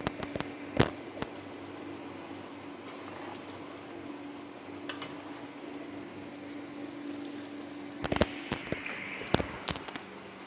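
Mutton curry bubbling in a clay pot over a high gas flame as its water cooks off, with a metal ladle clinking against the pot a few times: at the start, once in the middle, and in a cluster near the end.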